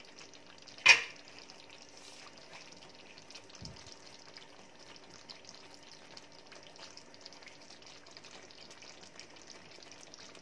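Chicken in coconut-milk sauce simmering in a frying pan with a steady, fine sizzle, the coconut cream cooked down until its oil separates. About a second in comes a single sharp knock, the loudest sound, with a faint low thud a few seconds later.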